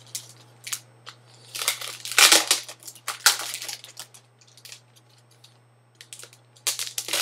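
Packaging from a keyboard box being handled and crinkled: irregular rustling, crackling bursts, loudest about two seconds in, a pause past the middle, then more rustling near the end.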